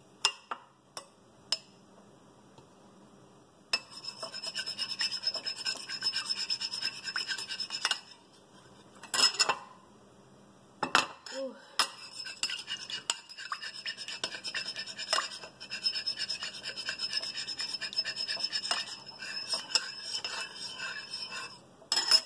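Metal spoon stirring a runny coffee-and-oil mixture with garlic bits in a ceramic bowl: rapid, continuous scraping of the spoon against the bowl, starting about four seconds in and running again from about twelve seconds on. A few sharp clinks of spoon on bowl come at the start and in the pause between, the loudest about nine seconds in.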